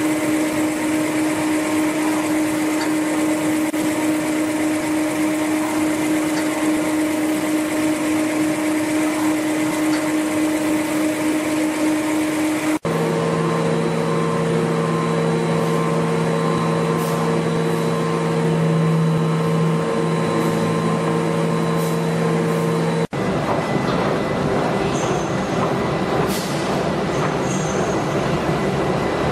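BAOSUO YD-PL600S toilet roll rewinder line machinery running: a steady mechanical hum with a droning tone. Its pitch and mix change abruptly twice, about 13 and 23 seconds in, and the last stretch is rougher and noisier, with a few faint brief high chirps.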